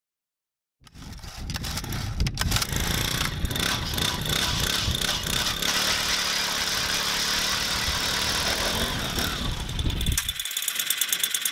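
Power ice auger running as it drills a hole through lake ice, starting about a second in; its engine eases off about a second before the end.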